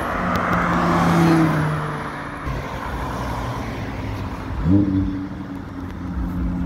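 Audi R8 V10 Performance's naturally aspirated 5.2-litre V10 running at low speed as the car rolls along, with one short rising rev about two-thirds of the way in, then steady low running.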